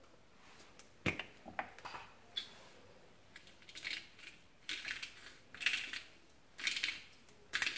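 Hand-twisted pepper mill grinding black peppercorns: short crackling bursts, about one a second, after a sharp click about a second in.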